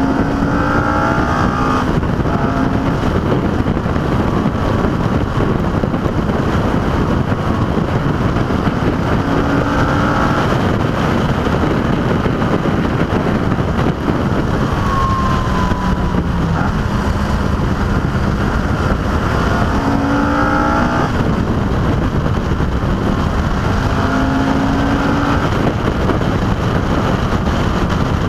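Car engine running hard on a fast drive, its pitch climbing in short rises several times as it accelerates, under a heavy rumble of wind and road noise on an exterior-mounted camera.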